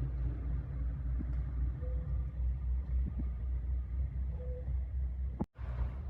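Steady low rumble of a diesel train at the station, with two short faint squeals. The sound cuts out for an instant near the end.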